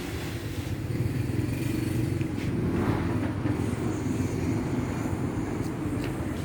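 A small engine running steadily at an even low hum, with a few faint ticks over it.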